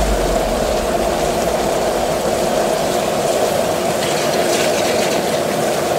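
Gas wok burner running steadily under a wok of chicken and vegetables that sizzles as it is stirred with a metal ladle.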